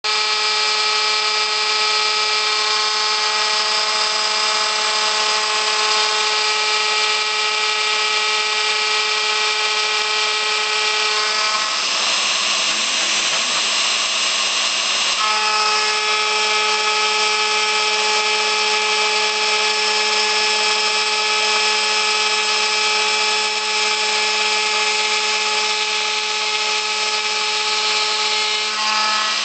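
ShopBot CNC router spindle, at medium speed (3 of 6), driving a 1/8-inch carbide end mill through steel plate: a loud, continuous ringing whine made of several steady tones. About twelve seconds in, the tones give way to a rougher, noisier cutting sound for about three seconds before the ringing returns, and it roughens again briefly near the end.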